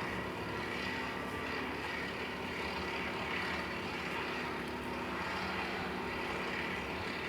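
A steady engine drone that holds an even level throughout, with a few faint steady tones in it.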